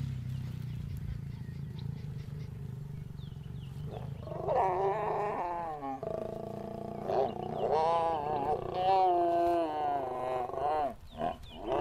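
A lion and lioness growling and snarling while mating. A low steady growl for the first few seconds gives way to a run of drawn-out snarls from about four seconds in, with a last sharp snarl near the end as the pair breaks off.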